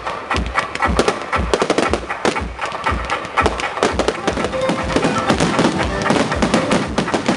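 Fireworks display: a dense, continuous run of bangs and crackles from bursting shells, with deep thuds several times a second.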